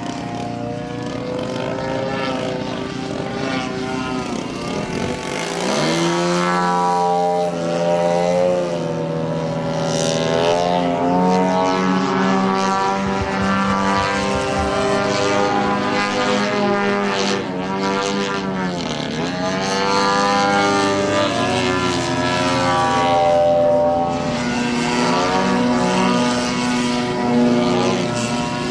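Radio-controlled model airplane flying, its engine changing pitch as the throttle works up and down, with sweeping swoops in pitch as it passes, about 5 and 19 seconds in.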